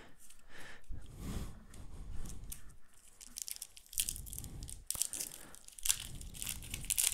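A foil trading-card booster pack crinkling and being torn open by hand, the crackle densest in the second half, with loose cards being handled and a few low handling thumps before it.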